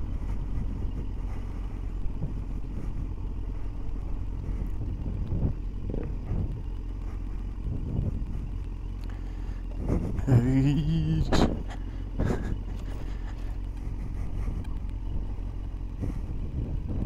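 Yamaha street motorcycle running along a rough dirt road, with a steady engine and wind rumble and scattered knocks. A brief, louder wavering tone comes in about ten seconds in.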